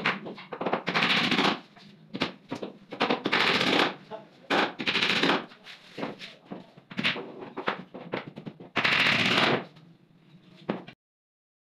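Power screwdriver driving screws into laminated particleboard in about seven short bursts, each a fast rattle lasting half a second to a second.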